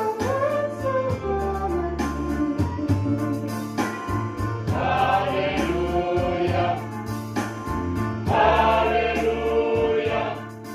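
Mixed choir of men's and women's voices singing a sacred song in parts, swelling louder about five seconds in and again near eight seconds, over steady low sustained notes.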